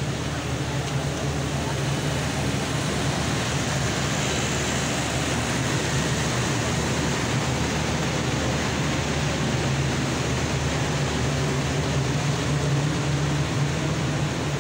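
Stationary diesel passenger train humming at a station platform: a steady low drone under a continuous rushing noise from its engines and machinery running.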